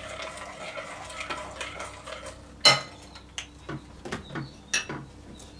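A metal spoon stirring slime ingredients in a glass bowl, with scattered clinks of metal on glass; the loudest clink comes a little under three seconds in.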